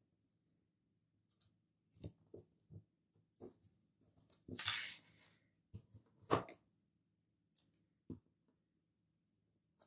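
Scissors cutting a sticker out of a sticker sheet: a handful of quiet, separate short snips and paper handling, with one longer rasp of paper about four and a half seconds in.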